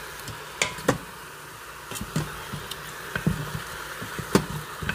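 A wooden spoon stirs chicken drumettes in an Instant Pot's stainless steel inner pot on sauté, knocking against the pot about half a dozen times. Under the knocks is a steady sizzle of the meat in hot oil.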